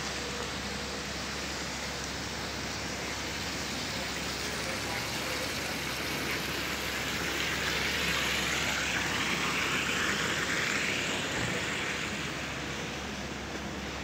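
Steady hiss of city street traffic, swelling as a vehicle passes about halfway through, then fading again.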